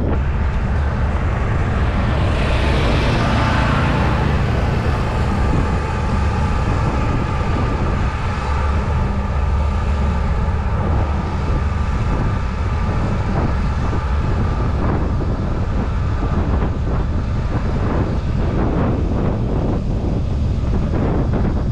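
Wind buffeting the microphone of a handlebar-mounted camera on a moving bicycle: a loud, steady low rumble with road noise.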